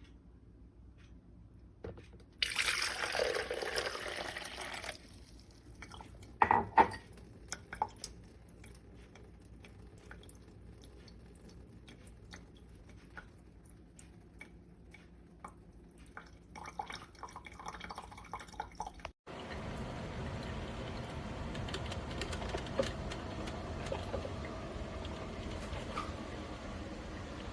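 Gevi 4-cup drip coffee maker brewing, with hissing and gurgling of water running through it: a loud burst of hiss a couple of seconds in, a few clicks and knocks, then a steadier, continuous hiss over the last third.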